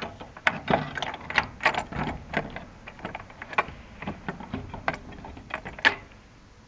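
Hand tools and metal and plastic parts clicking and knocking in quick, irregular succession, with a sharp knock near the end.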